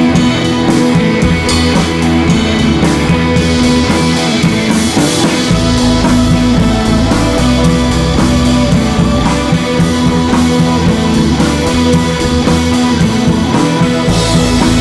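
Loud rock music track with guitar and drums, playing continuously.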